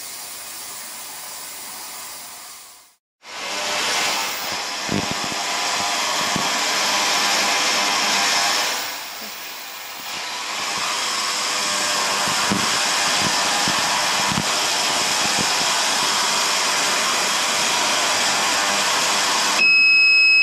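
Vevor digital ultrasonic cleaner running with carburettor parts in an unheated water bath, a loud steady noisy hiss, briefly cut off about three seconds in. Near the end it gives a high-pitched beep about a second long as its timer runs out.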